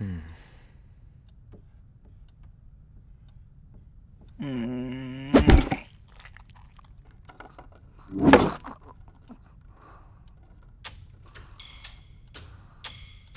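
Foley-style sound effects: a steady pitched hum lasting about a second ends in a loud thunk. A second loud hit follows about three seconds later, then scattered light clicks and knocks.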